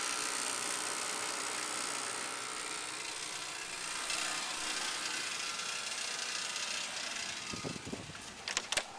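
Stewart-Warner gasoline heater in a VW Beetle running: a steady hiss with a faint steady whine, and a few sharp clicks shortly before the end.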